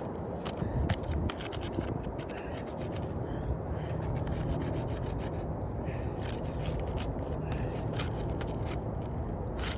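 Scraping and rubbing on asphalt roof shingles, with scattered short clicks and scrapes, as the shingle seals are broken and the nails above a damaged shingle are pried at. A steady low rumble runs underneath.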